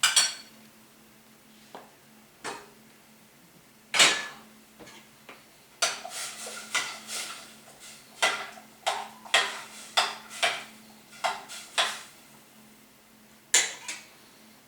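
Metal kitchen utensils and cookware clinking and knocking against each other in an irregular series of sharp strikes, busiest in the second half.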